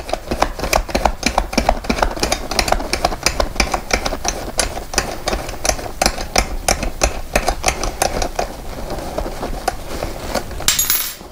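Hand tool working the fasteners out of a gaming chair backrest's metal T bar: a steady run of sharp clicks, about four a second. A short scraping hiss near the end.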